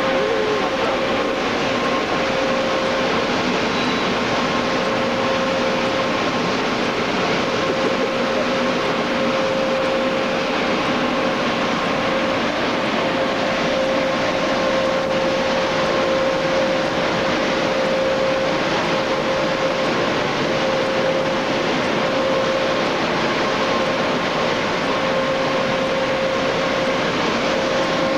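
Automatic car wash machinery running: a steady, loud rushing noise with a constant humming tone underneath.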